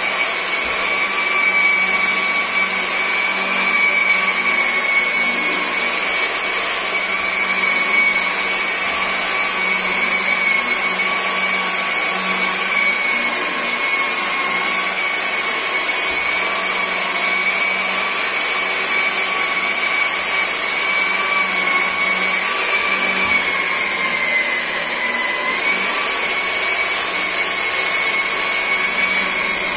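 Rotary car polisher running steadily with a buffing pad and polishing compound on a car's painted door: a constant motor whine whose pitch dips briefly about 25 seconds in.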